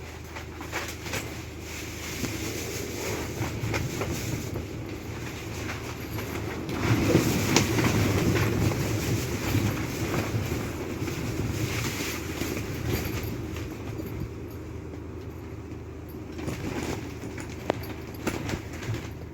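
Typhoon wind gusting: a steady rumbling rush that swells loudest about seven seconds in, with scattered knocks and rattles.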